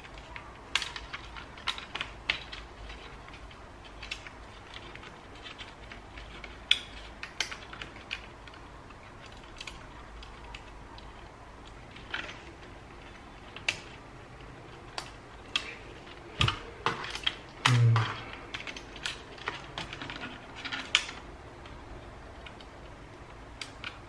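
Fingers handling an opened ThinkPad T430 laptop while routing its wires into the plastic chassis: scattered light clicks and taps of plastic and cable, with a quicker cluster of louder knocks about three-quarters of the way through.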